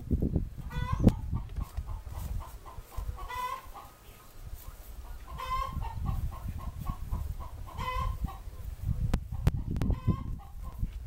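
Chickens clucking, with a louder stacked call about every two seconds and quick soft clucks in between, over a steady low rumble.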